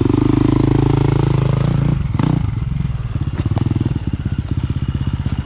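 Dirt bike engine running steadily at low revs with a pulsing exhaust note; the note shifts and a sharp knock sounds about two seconds in, with a couple more light knocks later.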